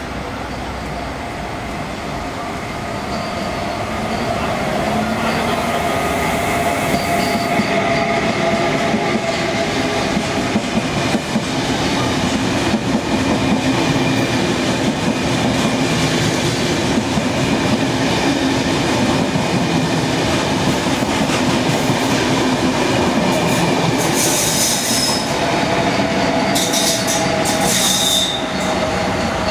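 KTT through train of double-deck coaches with its electric locomotive at the rear running through the station at speed: a steady rumble of wheels on rail with clickety-clack and wheel squeal, growing louder over the first few seconds and easing off near the end. Short bursts of hiss come near the end as the locomotive goes by.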